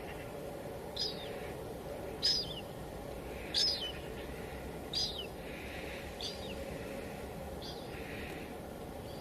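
Steady hiss of light rain (drizzle), with a bird calling over it: a short call that falls in pitch, repeated six times at an even pace of about one every second and a quarter.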